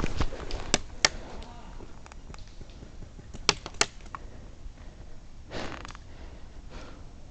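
Airsoft gun shots: several sharp single cracks in the first second, two more about two and a half seconds later, then a player's heavy breath.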